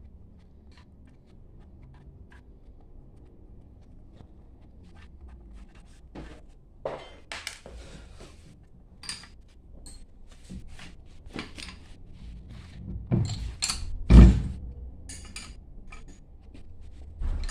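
Metal tools and hydrophore pump parts clinking and knocking while the pump is taken apart: scattered light clicks that grow busier partway through, and one heavy thunk late on, the loudest sound, over a steady low hum.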